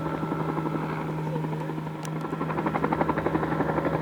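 Helicopter flying low and herding, with a rapid, steady rotor chop over a low engine hum. It grows louder in the second half.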